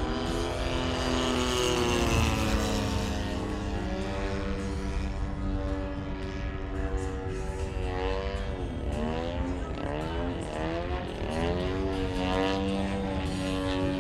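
Radio-controlled aerobatic airplane flying, its motor and propeller running steadily. In the second half the pitch dips and climbs back several times as the plane manoeuvres.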